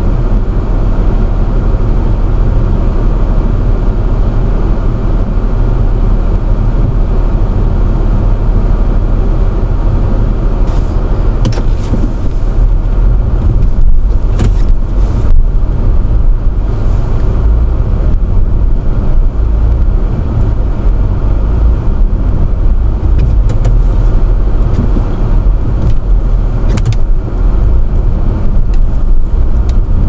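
A car's engine and tyres straining to drive out of deep snow: a heavy, steady low rumble, with a few short knocks or scrapes around the middle and near the end.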